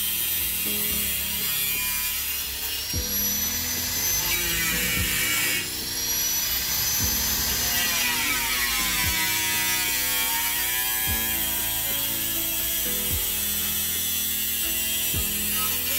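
Electric angle grinder with a cutting disc cutting into the sheet-metal front fender. Its high motor whine sinks in pitch and recovers as the disc bites and eases off.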